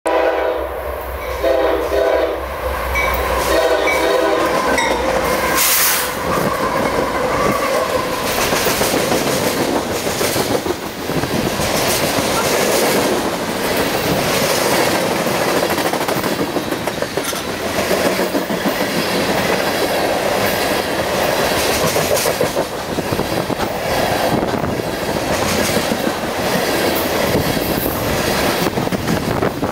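Diesel freight train: the locomotive sounds its horn in several blasts as it approaches, then passes, and a long string of open-top freight cars rolls by with steady wheel clatter and rumble on the rails.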